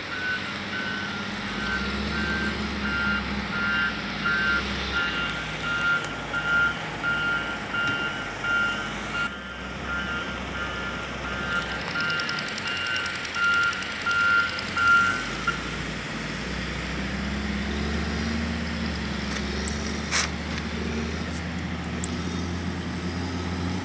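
Vehicle reversing beeper sounding a steady series of evenly spaced high beeps over a low, steady engine rumble; the beeping stops about two-thirds of the way through while the engine keeps running.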